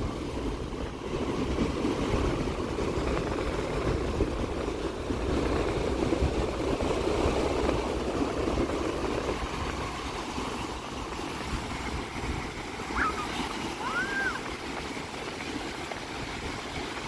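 Sea surf breaking and washing up the shore, a continuous rush of waves with low wind rumble on the microphone; the wash is heavier in the first half. Two brief high-pitched calls sound about three-quarters of the way through.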